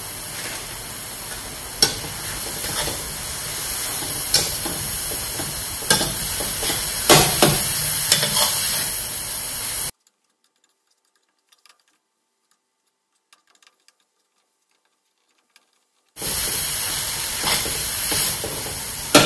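Grated coconut filling cooking with sugar in a metal wok, hissing and sizzling while a metal spatula stirs and scrapes it, with sharp clicks where the spatula strikes the wok. About ten seconds in the sound drops to near silence for some six seconds, then the sizzling and stirring resume.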